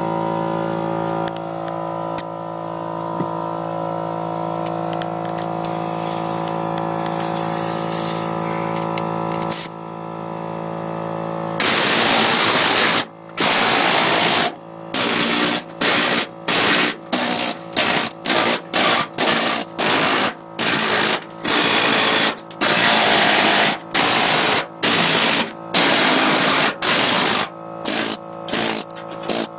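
A steady hum with several even tones. About twelve seconds in, a pneumatic needle scaler starts hammering rust off steel, a loud rapid rattle in short bursts of about a second each, stopping and starting roughly twenty times.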